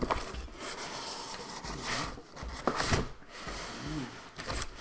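Cardboard shipping box being lifted up and off its foam packing, the cardboard scraping and rubbing against the foam blocks, with a few sharp knocks along the way.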